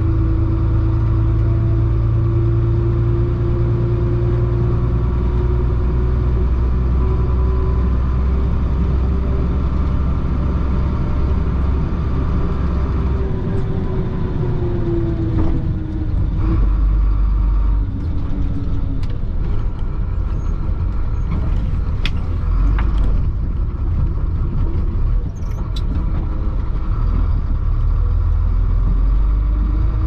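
Chenglong concrete mixer truck's diesel engine droning steadily from inside the cab while driving, its note dropping about halfway through as the truck eases off. Through the second half, sharp clicks and knocks come from the cab rattling over the rough dirt road.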